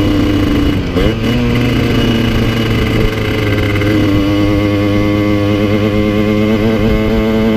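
Single-cylinder two-stroke engine of a Yamaha TZR50 with a 70cc kit and Technigas exhaust, running under way at moderate revs. The pitch dips briefly about a second in, then settles and shifts slightly up and down. The owner says the top end was worn out and the engine down on power.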